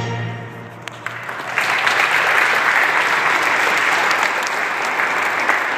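The song's last low note fades out, a few first claps sound about a second in, and then a seated audience breaks into steady applause.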